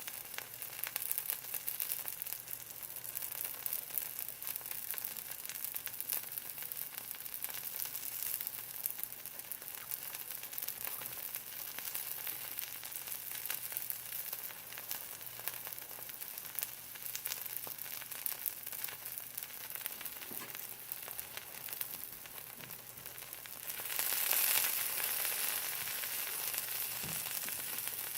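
A cheese-filled arepa sizzling in a dry pan, the fat melting out of the cheese crackling with fine pops; it swells louder about three-quarters of the way through.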